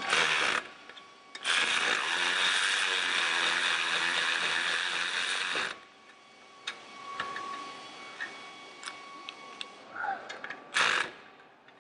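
Cordless electric ratchet running in bursts as it spins nuts off the old turbocharger's studs: a short run at the start, a long run of about four seconds, and another short run near the end, with scattered light clicks in between.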